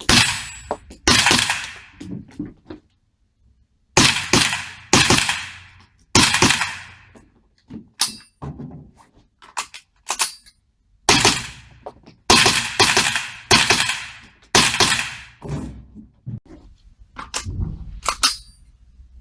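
Gunshots fired in quick strings of two to four, about sixteen in all, with short pauses and a few lighter, sharper clicks between the strings.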